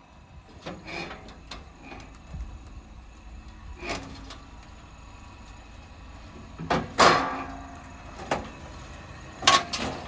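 Car doors shutting: several sharp thuds, the loudest about seven seconds in and another near the end.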